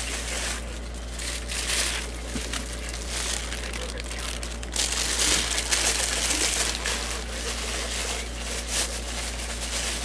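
Clear plastic bag crinkling and rustling as it is handled and pulled out of a cardboard box, getting louder from about five seconds in.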